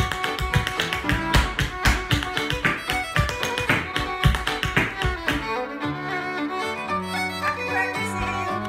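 Irish dance hard shoes drumming out a treble reel step: fast, dense taps over recorded reel music led by a fiddle. The taps stop about five seconds in while the reel plays on.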